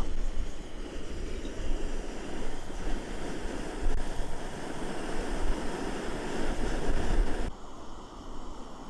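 Seaside wind rumbling and buffeting on the microphone over the wash of surf, dropping abruptly near the end.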